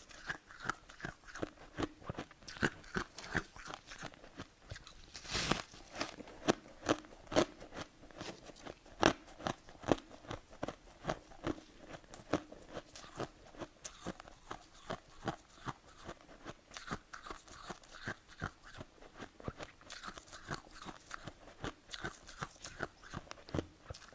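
Close-up chewing of freezer frost, a dense run of sharp, irregular crunches, several a second, with a longer crunch about five seconds in.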